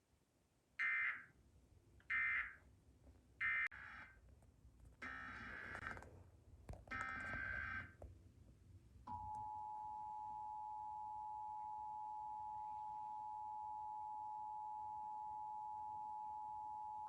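Emergency Alert System broadcast signalling. First come three short screeching digital SAME data bursts, the end-of-message code closing one station's test. Then two longer bursts, the header opening the next station's test. About nine seconds in, the steady two-tone EAS attention signal (853 and 960 Hz) starts and holds for about eight seconds.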